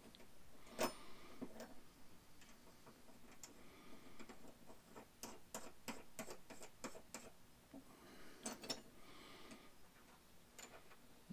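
Faint, scattered small metal clicks and ticks as a steel hex nut is picked up and threaded by hand onto a bolt of a metal bracket assembly.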